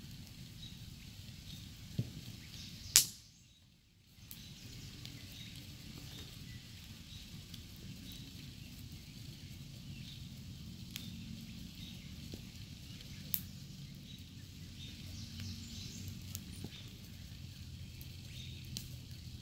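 Campfire crackling faintly over steady outdoor background noise, with scattered small ticks and one sharp, loud pop about three seconds in.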